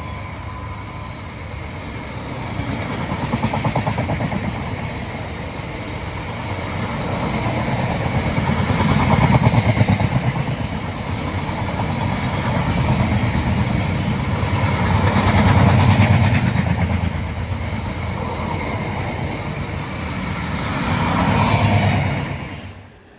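Diesel-hauled freight train passing close by: a heavy rumble with the locomotive's engine note, swelling and easing several times as it goes by, then cut off suddenly near the end.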